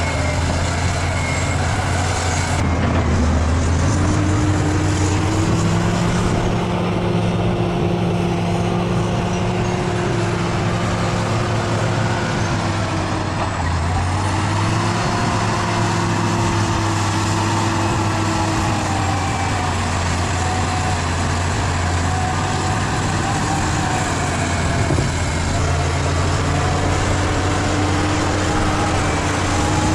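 Bulldozer's diesel engine running hard and steadily under load, its pitch sagging and recovering a few times as the load changes.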